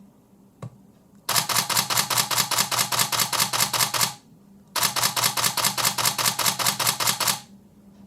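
Canon 5D Mark III shutter and mirror firing in continuous burst mode, about six frames a second, in two bursts of nearly three seconds each with a short pause between.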